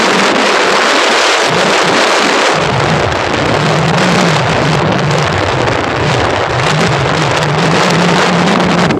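Wind rushing over the microphone of a moving vehicle, with a wavering low engine hum coming in a couple of seconds in.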